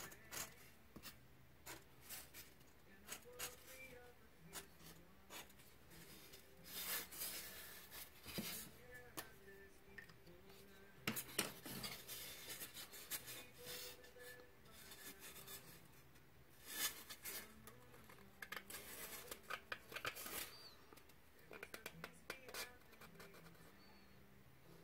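Snap-off-blade utility knife cutting and scraping a block of pink foam into shape, in irregular scratchy strokes and small clicks, a few of them louder. Faint background music underneath.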